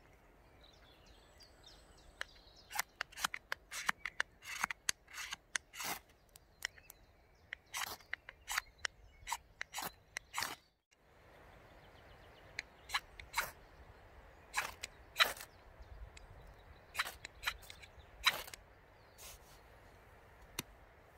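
Knife spine scraped down a ferrocerium rod again and again to throw sparks onto cramp ball fungus tinder: some two dozen sharp, rasping strikes at an uneven pace, with a short pause around the middle.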